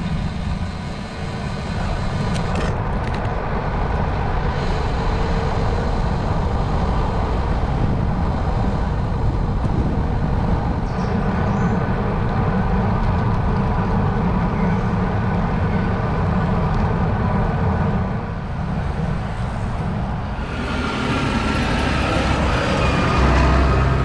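Steady wind rush buffeting a handlebar-mounted camera's microphone, with tyre noise, as a road bike rolls along. In the last few seconds a passing vehicle grows louder, a lorry towing a flatbed trailer going by close.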